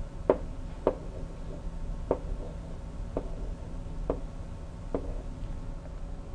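Stylus tip tapping down on a pen tablet while handwriting digits, six light clicks spaced irregularly about half a second to a second apart, over a steady low room hum.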